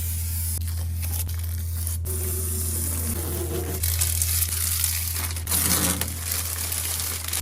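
Plastic packaging being torn open and crinkled by hand, with crackling that comes in irregular spurts over a steady low hum.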